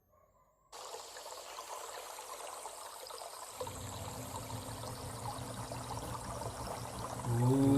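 Flowing water like a stream or trickle, starting suddenly under a second in. A steady low hum joins about midway, and near the end a loud, held pitched tone begins.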